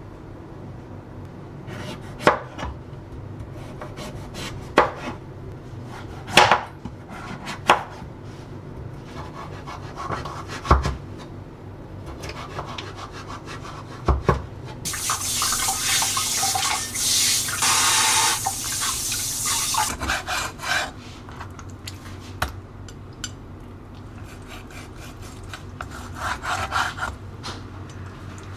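Kitchen food-prep sounds: scattered knocks and taps on a wooden cutting board, then a loud steady rushing, scraping noise for about five seconds midway, then softer rubbing and taps.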